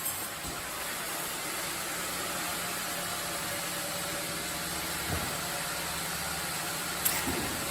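Sawmill machinery running steadily: an even mechanical noise with a low hum. There is a light knock about five seconds in and a few clicks near the end.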